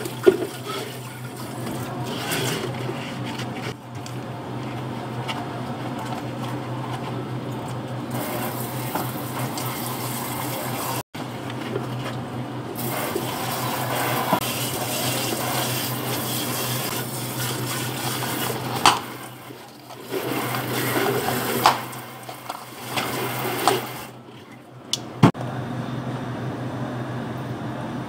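Thick blended smoothie poured from a blender jar into plastic cups and scraped out with a spatula, with liquid pouring sounds, a few sharp knocks of the jar or utensil, and a steady low hum throughout. Near the end, milk is poured into an empty plastic blender jar.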